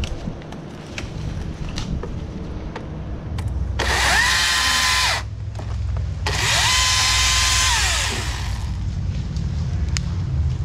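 Husqvarna T536LIXP battery chainsaw cutting through branches in two bursts, each time winding up quickly to a steady high whine and winding down again when released. A low engine hum continues underneath.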